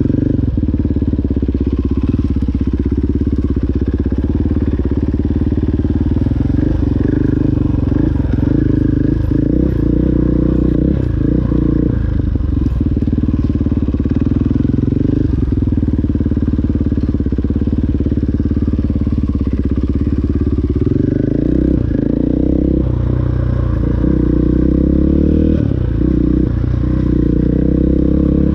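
KTM 500 enduro dirt bike's single-cylinder four-stroke engine running while the bike is ridden along a trail. It holds fairly steady, then from about twenty seconds in rises and falls in pitch as the throttle is opened and closed.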